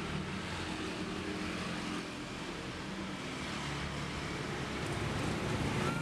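Motor vehicle engine running steadily amid road traffic noise, growing a little louder near the end.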